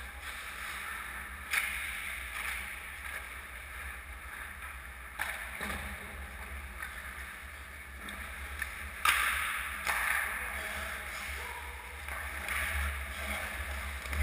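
Ice hockey skate blades scraping and cutting the rink ice, a handful of short sharp scrapes over a steady low hum, the loudest about nine seconds in.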